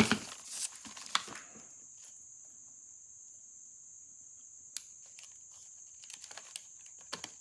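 Steel Kelly forceps clicking and scraping on a phonograph motor's governor spring and speed control arm while the spring is worked loose: a cluster of sharp metallic clicks and rustle at the start, one sharp click near the middle, and a few light ticks near the end, over a faint steady high hiss.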